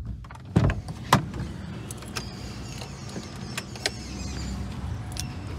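Sharp clicks and knocks inside a car as the driver handles the car key and controls, over a steady low hum.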